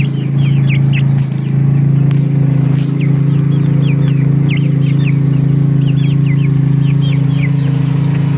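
Young Barred Rock, Rhode Island Red and sex-link chickens peeping: many short, falling, high peeps, several a second. They sound over a loud, steady low mechanical hum, which is the loudest sound throughout.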